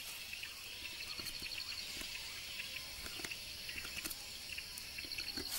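Night insects: a steady high hiss, with a fast, evenly pulsing insect trill starting about a second in and stopping near the end, and a few faint ticks.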